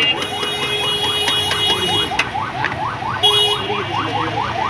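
Electronic alarm chirping: a fast, even run of short rising sweeps, about seven a second. A steady high beep sounds over it for the first two seconds and again briefly a little past three seconds.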